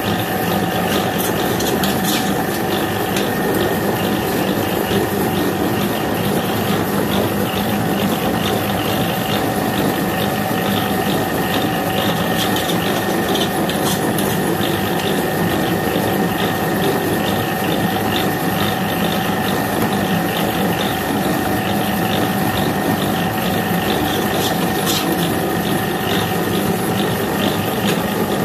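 Electric dough-beating machine running steadily, its motor and drive giving a constant hum with a fast, uneven clatter as the turning shaft churns cooked rice-flour dough for vermicelli in a metal bowl.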